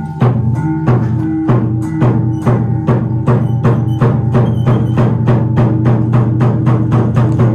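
Traditional Vietnamese water puppet theatre music, percussion-led: sharp, evenly spaced strikes that speed up from about two to about four a second, over a low held note.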